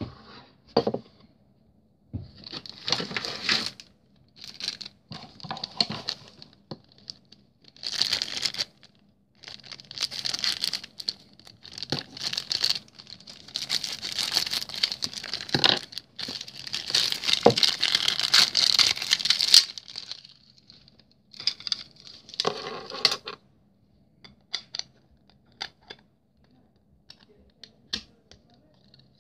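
Clear plastic protective film rustling and crinkling as it is pulled off a model airliner, in bursts of a few seconds each. Near the end only a few light clicks and taps of plastic remain.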